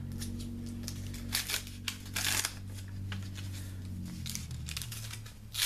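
Cardboard and paper rustling with short tearing strokes as a pack of Bicycle playing cards is opened. The strongest strokes come about a second and a half and two seconds in, and again near the end. Under them runs a low steady hum that fades out about four to five seconds in.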